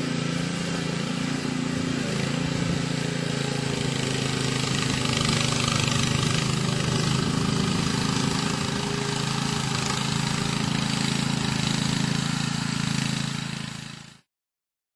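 Honda GXV160 single-cylinder four-stroke engine of a motorised power barrow running steadily. Near the end the sound fades and drops out to dead silence.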